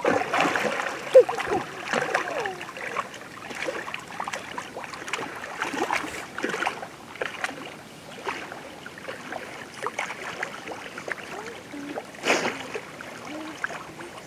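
Water splashing and sloshing around a swimmer carrying a child on his back, in irregular strokes, with a louder splash about twelve seconds in.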